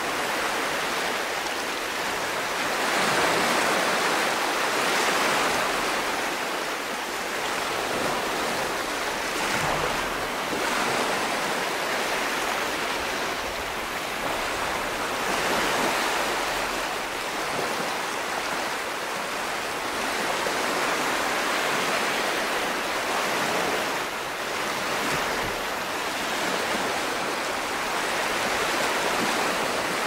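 Small, gentle sea waves breaking and washing up a sandy beach: a steady hiss of surf that swells every several seconds as each wave breaks and runs up the sand.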